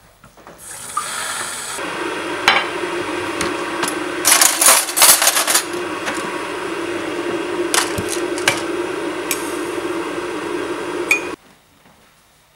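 Water running from a kitchen mixer tap into a kettle in a steady stream, with a few sharp clinks of crockery or metal along the way. The water cuts off abruptly near the end.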